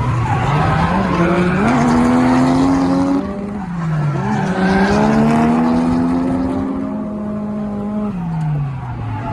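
Turbocharged 1JZ-GTE straight-six of a Lexus SC300 drifting, its revs rising and falling several times under throttle, with the tyres squealing as they slide.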